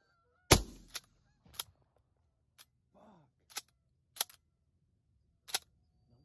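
A single loud shotgun shot about half a second in, followed by about six lighter sharp clicks spread out over the next five seconds.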